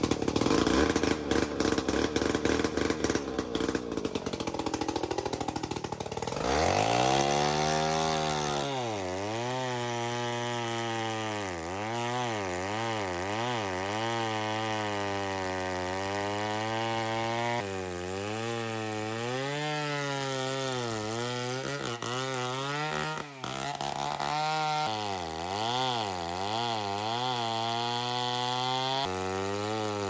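Two-stroke chainsaw running at idle for about six seconds after being started, then revved up and cutting into the base of a tree trunk. Under load its engine note keeps dipping and recovering as the chain bites into the wood, with one brief drop near the end.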